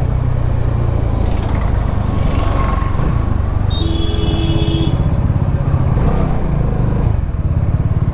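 Bajaj Dominar 400's single-cylinder engine running steadily, heard from the rider's position. A horn sounds once for about a second, about four seconds in.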